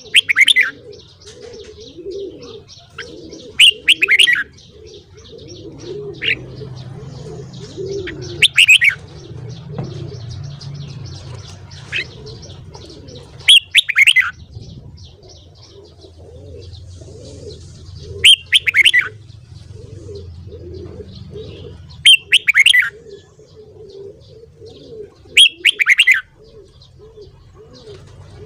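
Red-whiskered bulbul singing short, loud, whistled song phrases, one every four to five seconds. Doves coo steadily at a low pitch underneath.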